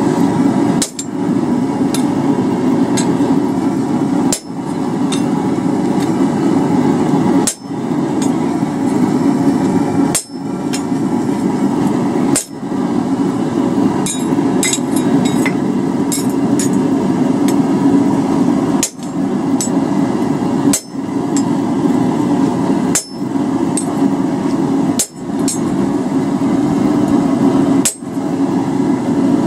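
Hand hammer striking a handled chisel held on a hot steel feather blank on the anvil. The blows come about two a second with a metallic ring, over a steady low rushing noise.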